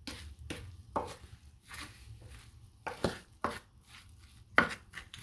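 A wooden spoon stirring chopped onion and ground spices in a terracotta tagine dish: soft scraping with irregular knocks of the spoon against the clay, the sharpest near the end.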